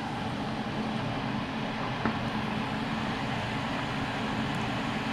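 Steady rushing rumble of a pot of farfalle pasta at a rolling boil, with one light click about two seconds in.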